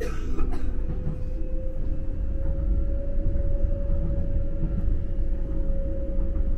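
Docklands Light Railway train running, heard from inside the front of the car: a steady electric motor whine that rises slightly in pitch over the first few seconds and then holds, over a low rumble of wheels on the track. A short clack right at the start.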